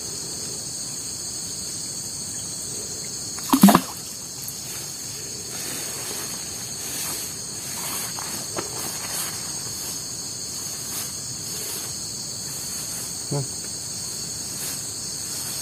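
Steady, high-pitched insect chorus from the streamside vegetation. About three and a half seconds in, a brief loud vocal sound falls sharply in pitch, and a shorter one comes near the end.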